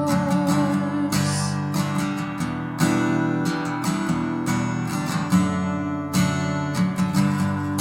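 Instrumental worship music: chords struck in a steady rhythm on a plucked-string instrument, with no singing.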